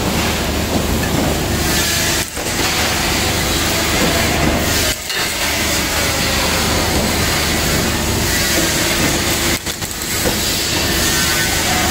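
Muratec Toyo 80-ton CNC press brake running: a steady machine hum with hiss, dipping briefly three times.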